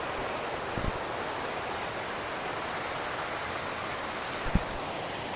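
Steady, even rush of a large multi-tiered waterfall's falling water, with two short low thumps about a second in and near the end.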